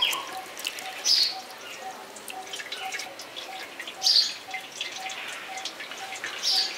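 Whey from curdled milk trickling and dripping through a cotton straining cloth, with birds chirping now and then. A faint short note repeats about twice a second throughout.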